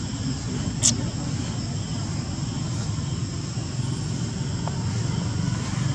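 Steady low background rumble, with one brief high squeak a little under a second in.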